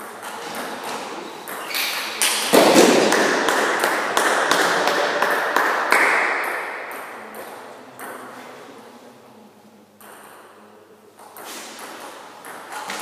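Table tennis ball ticking off bats and table during a rally. About two and a half seconds in, as the point ends, a loud burst of noise starts suddenly and fades over several seconds. Near the end the ticks of a new rally begin.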